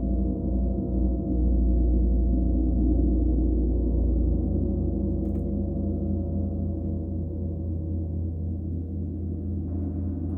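Gong sustaining a deep, shimmering drone of many overlapping low tones that pulse and swell, its deepest hum fading after a few seconds.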